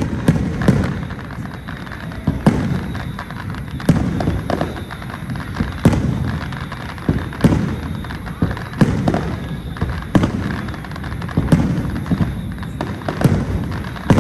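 Aerial fireworks shells bursting one after another, a deep boom roughly every second or so.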